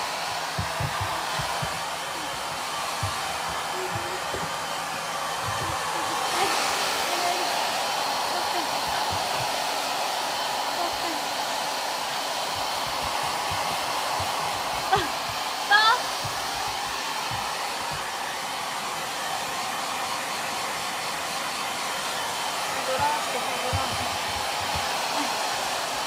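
Handheld hair dryer blowing steadily while drying a dog's coat. Two brief high rising squeaks are heard about two-thirds of the way through.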